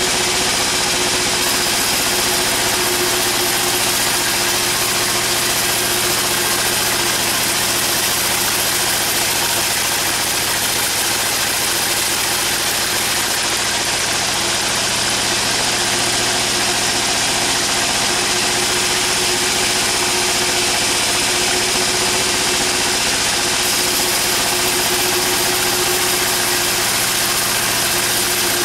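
Sawmill machinery running steadily, a constant engine-like hum with a high hiss over it and no change in level.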